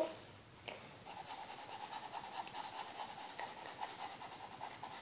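Pink felt-tip pen colouring on paper: faint, quick, even back-and-forth strokes that begin about a second in and keep on steadily.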